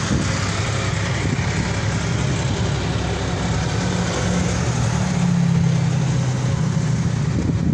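An engine running steadily under a broad hiss; its hum shifts a little higher about five seconds in.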